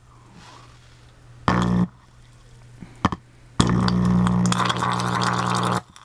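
Microwave oven transformer driving a high-voltage arc between two wire probes held close together under water: a loud buzzing crackle that comes in bursts. There is a short burst about a second and a half in and a sharp click near three seconds, then a two-second burst that cuts off suddenly near the end. A faint low hum continues between the bursts.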